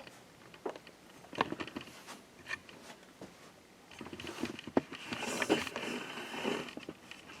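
Handling noise: a few light clicks and knocks, then shuffling and rustling from about four seconds in, as things are moved about in a small room.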